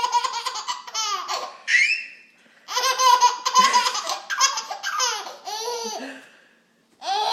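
Small child laughing hard at a person's sneeze, in quick high-pitched peals. There are two long bouts, split by a short break about two seconds in, and a pause near the end.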